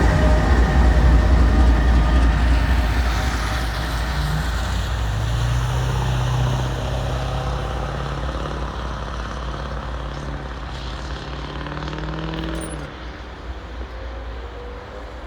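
Long mixed freight train rolling past, its low rumble fading steadily as the train goes by. A steady engine hum comes in about five seconds in and stops about two seconds before the end.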